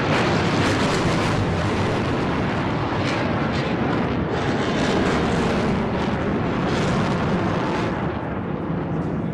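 Twin-engine Sukhoi Flanker fighter jet flying a display overhead: a loud, rumbling jet-engine roar that eases slightly near the end.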